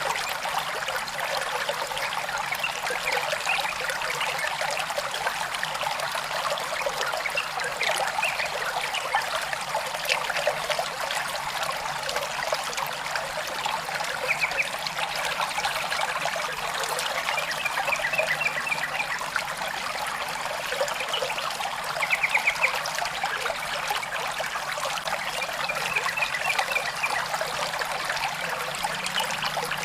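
Stream water trickling and splashing steadily. A short, rapid trill repeats about six times over it, the loudest about two-thirds of the way through.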